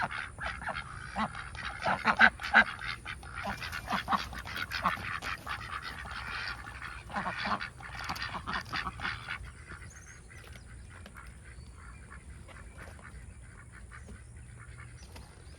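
A flock of ducks quacking in a busy chorus of many overlapping calls as they are let out of their pen. The calling dies down about ten seconds in.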